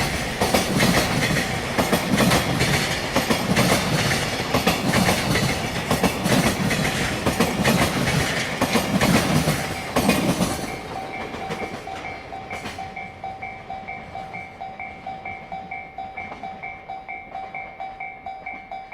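Freight train's container wagons rolling past over rail joints, a loud rhythmic clatter as each wheelset strikes the joints. The last wagon clears about ten seconds in, leaving the level crossing's electronic warning bell dinging steadily, about two to three rings a second.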